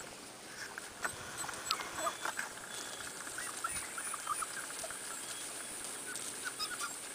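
Corgi puppies moving about on pea gravel: small stones clicking and shifting under their paws, with scattered short, faint high squeaks.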